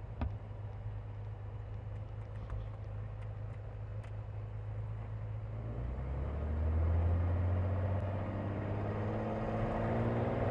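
Cirrus SR22's six-cylinder piston engine and propeller running at low power, then throttling up about six seconds in, rising in pitch and getting louder. The engine is running rough; the fault was later traced to a missing fuel-injector gasket on cylinder #2 that made that cylinder run lean.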